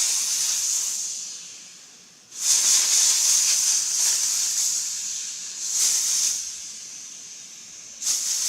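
High-pressure air hissing out of a Huben K1 PCP air rifle's regulator chamber as the regulator is slowly unscrewed, bleeding off the air. The hiss comes in surges: it fades over the first two seconds, comes back strongly, swells again about six seconds in, drops low, and rises once more near the end.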